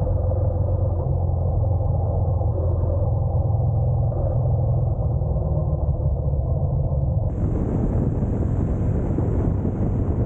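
Honda NC750X's parallel-twin engine running with a steady low hum. About seven seconds in, a hiss joins it and cuts off suddenly near the end.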